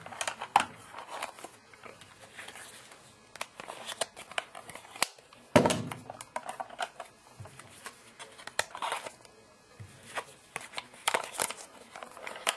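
Hands handling small plastic toy pieces, with scattered clicks, taps and crinkly rustling and one louder knock about five and a half seconds in.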